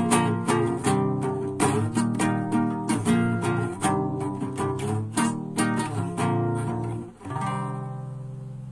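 Classical acoustic guitar strummed in a quick, steady rhythm of chords. About seven seconds in, a final chord is struck and left to ring out, fading away: the end of the piece.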